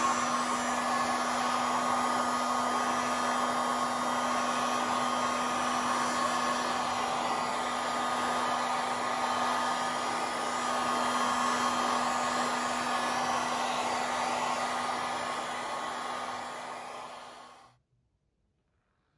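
Electric heat gun blowing steadily, a fan whoosh with a steady hum, as it is worked over the golf cart's black plastic cup-holder dash. It runs down and stops near the end.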